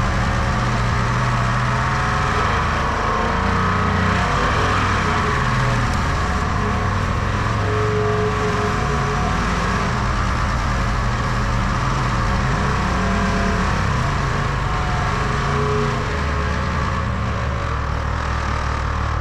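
A heavy engine running steadily, its low note shifting a little near the end.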